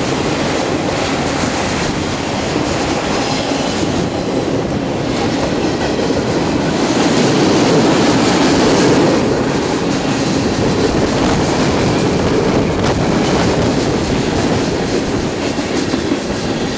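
Freight cars of a CN train passing close by at speed: steel wheels rolling on the rails, a steady noise that swells for a couple of seconds around the middle.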